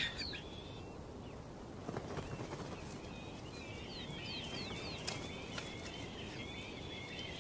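Caracara chicks calling from the nest: a rapid string of thin, high chirps that starts about three and a half seconds in and keeps going, over a faint steady hiss.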